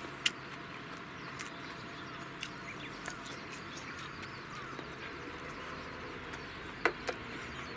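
Chopsticks clicking against a stainless steel bowl now and then during eating, sharpest once just after the start and twice about seven seconds in, over a steady background hiss with faint bird chirps.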